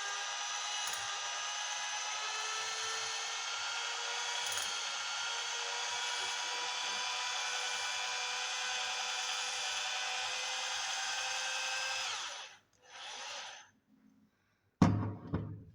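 Electric drill spinning a hone in a brake wheel cylinder bore: a steady whine that cuts off about twelve seconds in. A brief burst of the drill follows, then a loud knock near the end.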